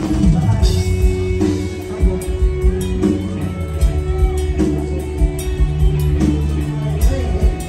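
Live band music through a stage PA: a plucked-string lead over sustained bass notes and a steady drum beat.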